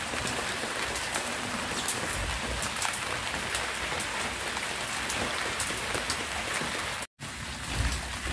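Steady rain falling, with the ticks of individual drops heard through an even hiss. The sound cuts out for a split second about seven seconds in.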